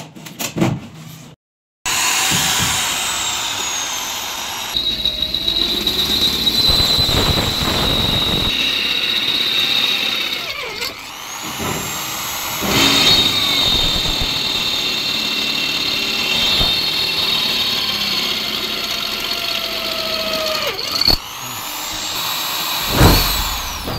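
Corded Total hand drill, clamped in a drill stand, running and boring into a square steel tube. It starts about two seconds in, then its whine shifts in speed a few times, dipping briefly about halfway and again near the end.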